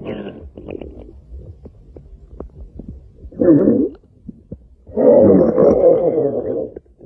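Stomach growling: a gurgle at the start, a short loud rumble about three and a half seconds in, and a longer gurgling rumble lasting nearly two seconds from about five seconds in.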